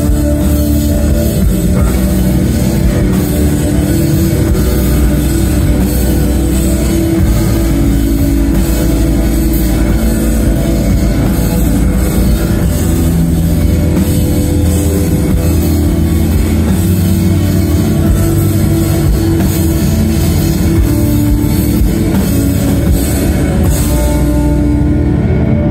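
Post-rock band playing live through a PA: layered electric guitars over a full drum kit in a loud, dense, steady build. Near the end the high cymbal wash cuts off, leaving the guitars ringing on.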